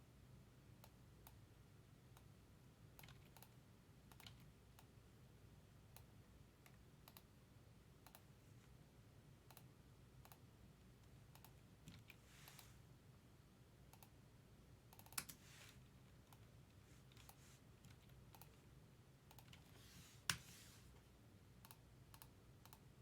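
Faint, scattered clicks of a computer mouse and keyboard in a quiet room, with two sharper clicks about fifteen and twenty seconds in.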